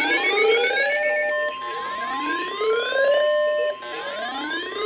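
Weather alert radio alarms going off: a siren-like whoop that rises in pitch, holds briefly and cuts off, repeating about every two seconds, over a steady high tone near 1 kHz.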